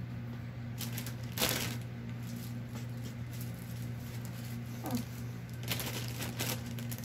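Paper rustling and crinkling in short bursts as cut-out paper flowers are handled and sorted, loudest about a second and a half in and again around six seconds, over a steady low hum.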